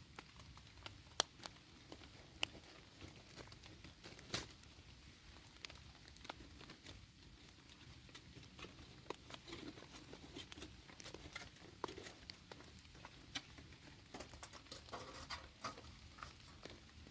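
Irregular pattering of raindrops, sharp single taps a few times a second.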